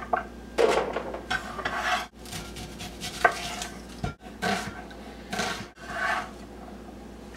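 Chef's knife scraping and cutting on a wooden cutting board as an onion is trimmed and chopped: short scratchy strokes with a sharp tap near the middle, broken by a few abrupt cuts in the sound.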